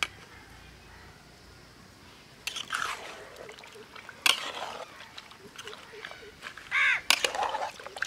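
Metal spatula stirring raw chicken pieces in turmeric and liquid in an aluminium pot: wet squelching and scraping that starts a couple of seconds in, with a few sharp clinks of metal against the pot.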